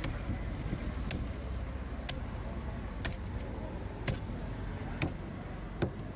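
A heavy fish-cutting knife chopping into the head of a yellow spotted trevally on a wooden block, with sharp strikes about once a second, six in all. A steady low rumble of street traffic runs underneath.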